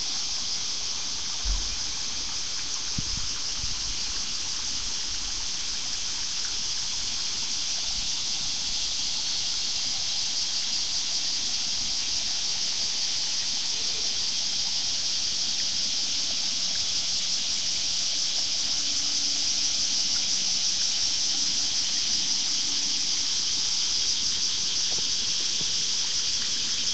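A steady, high-pitched chorus of insects shrilling from the riverbank trees, with a low knock about a second and a half in.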